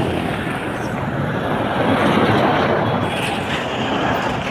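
Road traffic passing close by: a steady rush of vehicle engines and tyres.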